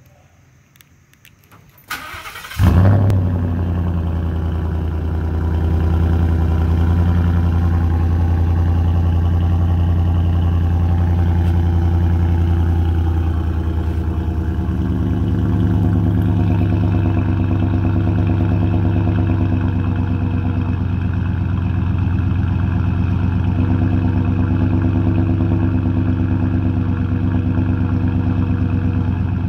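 Cold start of a 2017 Roush F-150's 5.0-litre V8, heard at its side-exit dual exhaust tips. The starter cranks briefly about two seconds in, the engine catches with a loud flare, then settles into a steady low idle.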